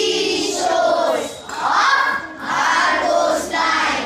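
A group of children's voices reciting in unison, in short chanted phrases with brief breaks between them.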